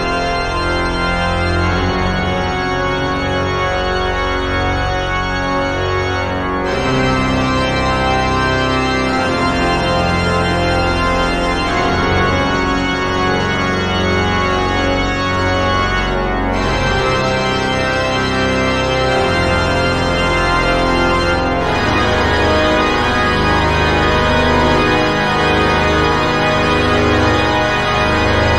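Pipe organ playing long held chords that change about every five seconds, at a steady level.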